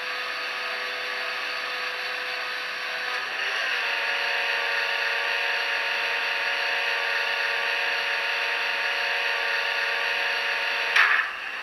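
Sound decoder of an HO-scale BR 232 'Ludmilla' model locomotive playing its diesel engine sound through the model's small speaker: a steady drone with a whine, stepping up in pitch and getting louder about three and a half seconds in. It stops abruptly with a click near the end.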